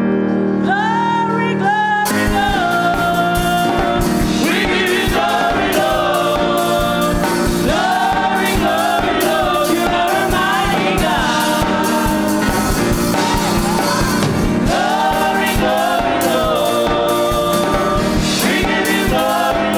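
A group of singers performing an upbeat gospel praise song. It opens on a held chord with a single rising voice, and about two seconds in a steady beat and the full group of voices come in.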